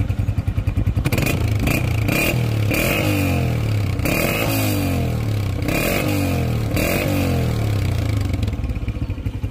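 Honda CG125's single-cylinder four-stroke engine heard at a chrome aftermarket silencer: idling, then blipped about six times in quick succession, each rev rising and falling, before settling back to idle near the end.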